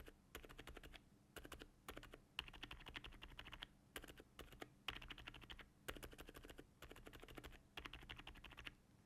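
Typing on a mechanical keyboard with silent switches: quiet keystrokes in quick bursts of several keys each, stopping shortly before the end.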